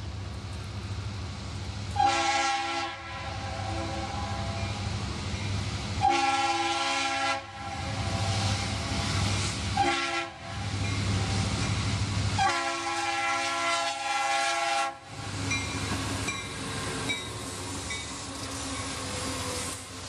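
Norfolk Southern EMD SD60I diesel locomotive's air horn sounding the grade-crossing signal, long, long, short, long, the last blast held about two and a half seconds, over the low steady running of the diesel engines. After the horn stops, the engines keep running as the locomotives reach the crossing.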